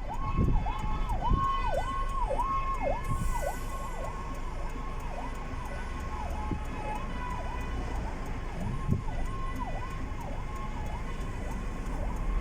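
Fire engine siren sounding a fast repeating cycle, holding high and dipping down and back about twice a second, over a low rumble.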